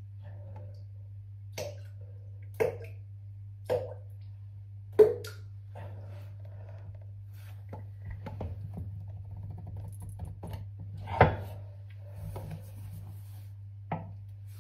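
A person defecating on a toilet, heard from inside the bowl: about six short, sharp sounds over a steady low hum, the loudest about five and eleven seconds in.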